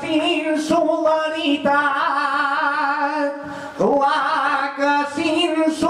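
A man singing a Mallorcan glosa a cappella into a microphone, drawing out long melismatic notes with vibrato. A short break about three and a half seconds in, then the next phrase starts with an upward slide.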